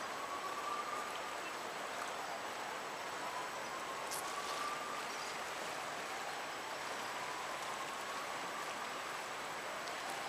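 Fast-flowing river in flood, a steady rush and wash of moving water. A faint, slowly rising tone repeats about three times over it.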